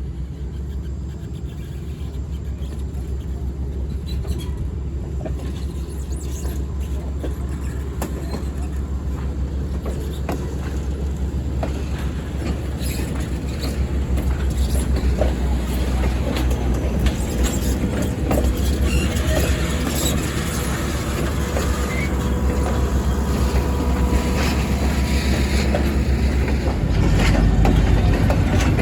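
Conway Scenic Railroad train running on the rails: a steady low rumble with scattered wheel clicks and rattles, growing slowly louder.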